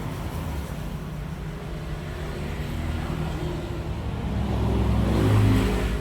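Low engine hum of passing road traffic, growing louder about four seconds in as a vehicle goes by, then easing.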